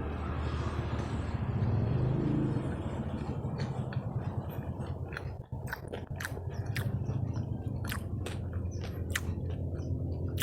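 Crunchy chewing of fried snacks close to the microphone. Short, sharp crackles come in quick succession from about a third of the way in, over a steady low hum.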